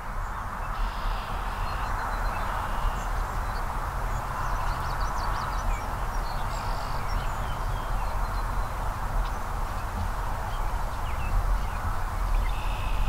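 Steady outdoor background: a constant rushing hiss with a low rumble under it, and faint, scattered songbird calls.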